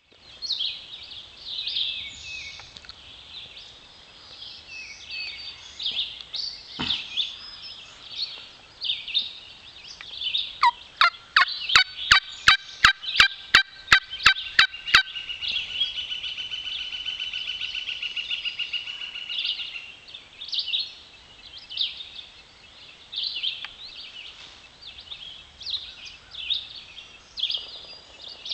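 Hen turkey talk made on a Primos double-reed mouth diaphragm call: soft scattered clucks and chirps, then a run of about a dozen sharp yelps at roughly three a second near the middle, running straight into a long rolling purr of about five seconds, before the soft calling resumes.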